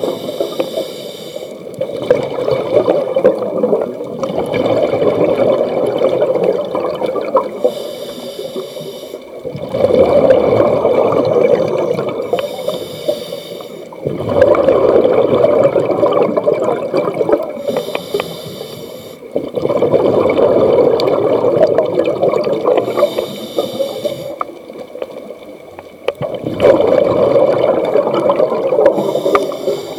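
Scuba diver breathing through a regulator underwater: a short hiss on each inhale, then several seconds of rumbling exhaled bubbles, repeating about every five seconds.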